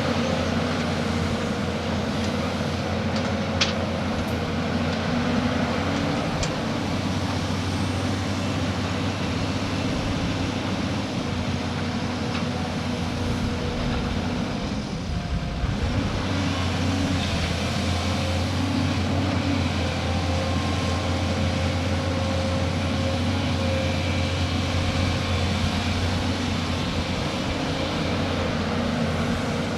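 Heavy diesel engine of an excavator at work, running steadily with a low drone and a steady hum, with a sharp click a few seconds in and a brief dip about halfway.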